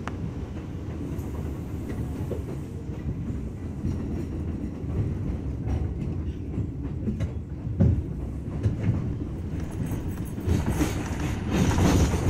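R179 subway car running on elevated track, heard from inside the car: a steady low rumble with wheels clattering over rail joints. A sharp knock comes about eight seconds in, and the wheel noise grows louder and harsher near the end.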